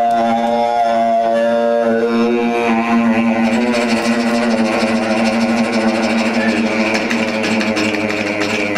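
Vocal mimicry of an airplane and a train, performed into a stage microphone: a steady droning hum for about the first three seconds, then a noisier, wavering rush with a high hiss.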